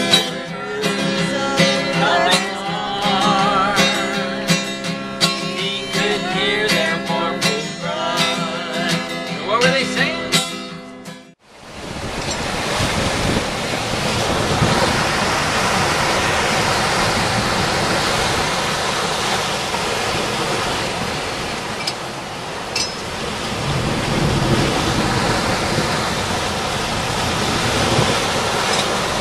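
Acoustic guitar strummed with singing, which cuts off abruptly about 11 seconds in. Then a steady rushing noise of gale-force wind and heavy seas on a sailboat's deck, with a couple of faint clicks.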